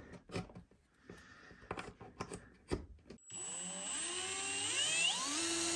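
A few light clicks and knocks from handling the multimeter. About three seconds in, a cordless drill starts spinning a stepper motor that is wired as a generator, and its whine rises in pitch for about two seconds and then holds steady.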